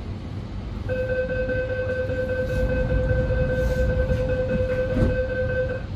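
Steady electronic tone from the Sydney Metro train at the platform, starting about a second in and holding one pitch for about five seconds before cutting off, over the low rumble of the train at standstill.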